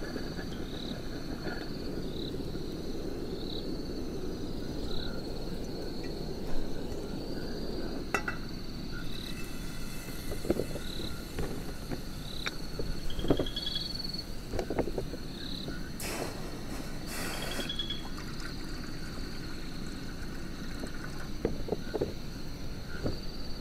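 Outdoor ambience: short high chirps repeat about once a second from a calling frog or insect, over a steady low rumble, with scattered light clicks and knocks and a brief hiss about two-thirds of the way through.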